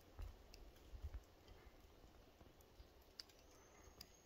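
Near silence: faint scattered clicks and a few soft low thumps, with a faint thin high whistle in the second half.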